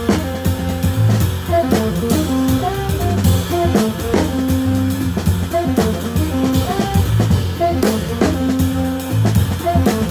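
Small jazz group playing up-tempo: an alto saxophone melody over a double bass line and a busy drum kit with ringing cymbals.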